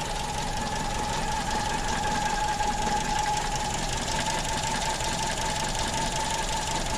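Volkswagen Gol's 1.6 CHT four-cylinder engine, carburetted with a Weber 460, idling steadily while it warms up, heard from the open engine bay. A steady high whine runs over the idle.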